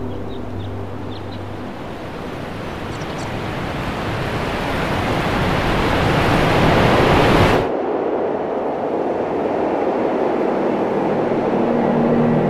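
A rushing noise swells louder for about five seconds, then cuts off abruptly about two-thirds of the way in. A quieter, lower rush follows.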